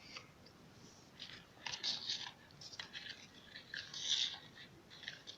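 Faint, irregular scraping and scratching of a spoon working cake mix in a bowl.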